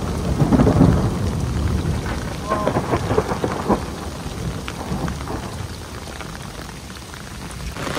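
Heavy rain pattering with a rolling thunder rumble that is loudest at the start and dies away over the following several seconds.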